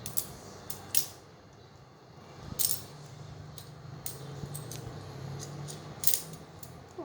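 Plastic magnetic tiles clicking against each other as they snap into place, a few sharp separate clicks with the loudest about two and a half seconds in and again about six seconds in.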